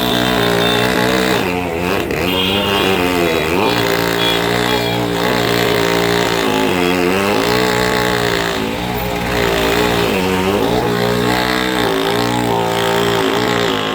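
An engine running steadily, its speed sagging and picking up again every second or two as if under varying load.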